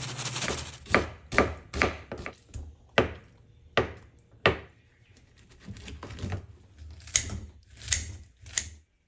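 A brief hiss of boiling water as bean sprouts go in, then a kitchen knife chopping a block of tofu on a cutting board, about eight sharp knocks. Kitchen scissors then cut boiled bean sprouts in a metal strainer, with three crisp snips near the end.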